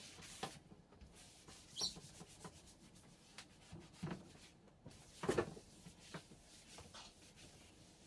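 Microfiber towel wiping all-purpose cleaner across a granite countertop: faint rubbing with a few soft bumps, the loudest about two and five seconds in.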